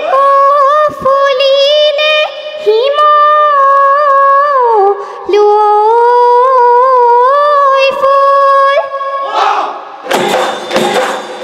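A girl sings a Bihu song into a microphone, holding long notes that slide up and down in pitch. Near the end, a quick run of dhol drum strokes and noisy clatter comes in.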